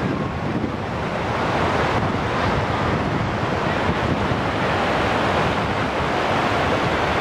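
Steady rush of water pouring over a low causeway from a reservoir, mixed with wind buffeting the microphone.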